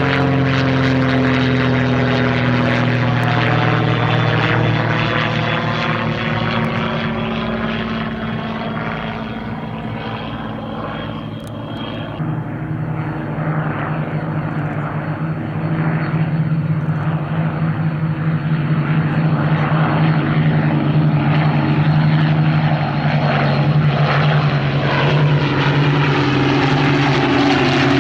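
Propeller aircraft engines droning in flight, a steady pitched hum. The sound eases off about a third of the way through, then grows louder again.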